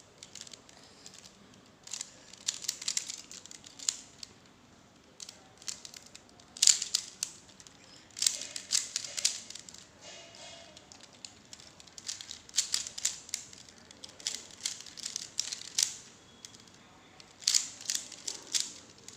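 Plastic Pyraminx being turned fast in a speed-solve: rapid clusters of clicks and snaps as the layers and tips are twisted, broken by short pauses.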